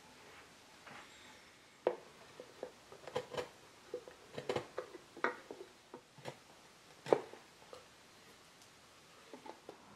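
A bench chisel paring the edge of a wooden writing slope: a series of irregular small clicks and snaps as thin slivers are cut away, the loudest about seven seconds in.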